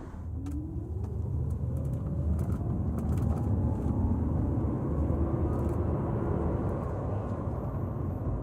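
Car accelerating: a whine climbs steadily in pitch over several seconds above a heavy low rumble that grows louder, with a few faint ticks.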